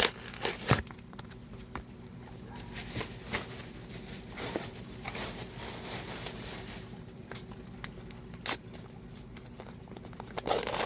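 Makeup packaging being handled and torn open, with rustling, crinkling and a few sharp clicks and taps.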